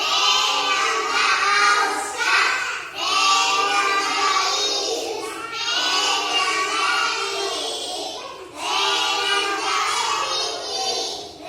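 A class of children reading a nursery rhyme aloud together in a sing-song chant, in about four long phrases with short breaks between them.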